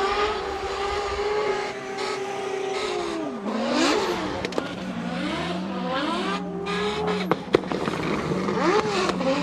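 Drift car's engine revving hard while the car slides sideways, held high and then dropping and climbing again and again as the throttle is worked, with tyre squeal. Two sharp cracks stand out about seven and a half seconds in.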